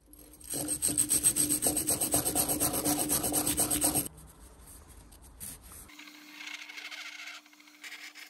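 Quick, even back-and-forth rubbing on a metal Amal carburettor part worked by hand for about three and a half seconds, then stopping. Quieter handling follows, with a faint steady hum from about six seconds in.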